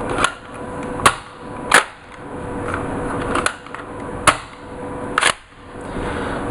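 About six sharp plastic snaps, roughly a second apart, from a Nerf Slide Blast Armor arm blaster: its spring-loaded armor plates being released and clicked back into place. A steady faint hum runs underneath.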